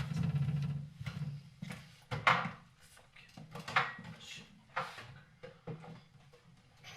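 Scattered short knocks and clunks of household items being handled, about five spread over several seconds.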